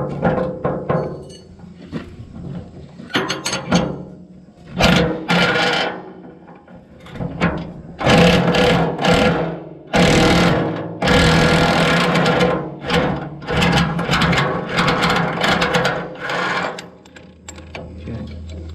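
A power tool running in repeated bursts of a second or two, with clicks and metal knocks between, as a bolt is worked loose on a combine's cutter bar.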